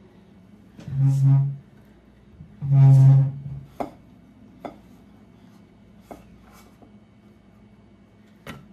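Silicone spatula scraping in a metal muffin pan as baked muffins are pried out: two low, steady groaning tones about a second and three seconds in, then several light clicks and taps of the spatula against the pan.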